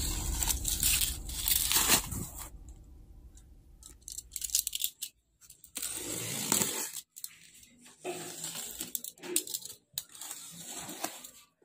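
Bubble wrap crinkling and tearing as it is pulled off a cardboard box for about the first two seconds. Then come short rustles and scrapes, with a box cutter slicing through packing tape on the cardboard a little past the middle.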